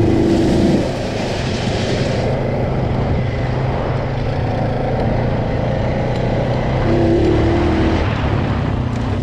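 Honda Rubicon ATV engine running steadily while riding, with a hiss over the first two seconds.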